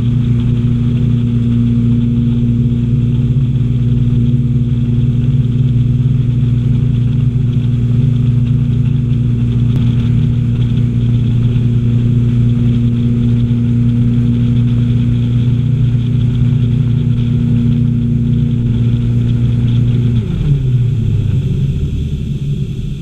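A ski boat's engine running steadily at towing speed, with water and wind noise. About 20 seconds in, the throttle is pulled back and the engine note falls in pitch as the boat slows.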